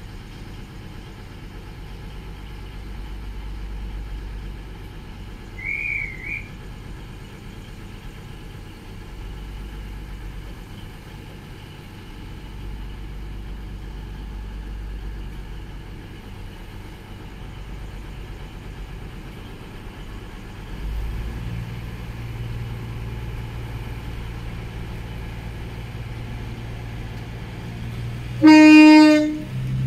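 CrossCountry Voyager diesel train's underfloor engines idling with a low rumble that grows louder about 21 seconds in as power is built up. There is a brief high chirp about six seconds in, and near the end a short, loud single-note toot of the train's horn.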